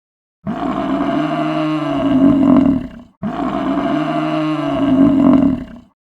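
An animal's long, drawn-out, low-pitched call, heard twice as the same call repeated about three seconds apart.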